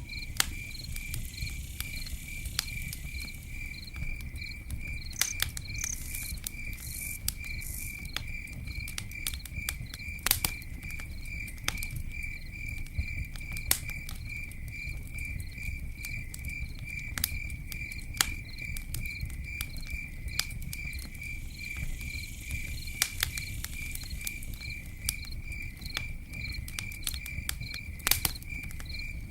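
Campfire crackling with scattered sharp pops, the loudest about a third of the way in and near the end, over a low steady rush. An insect chirps steadily throughout, a few even chirps a second.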